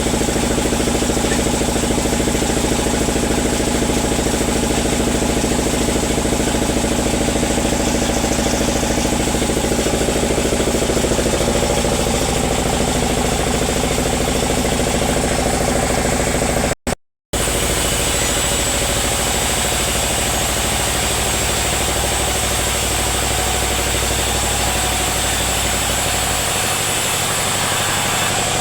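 Sawmill machinery running with a steady engine drone. The sound drops out for about half a second about seventeen seconds in, then carries on.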